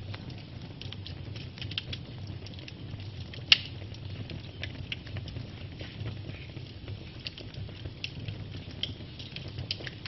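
Wood log fire crackling: many small pops and ticks over a low steady rumble, with one sharp, much louder pop about three and a half seconds in.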